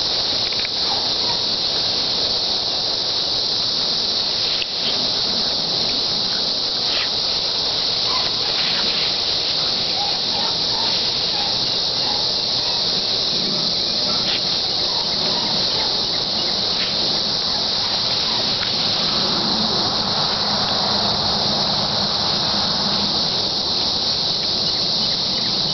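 Steady high-pitched insect chorus buzzing without a break, with a few faint short scuffles and clicks beneath it.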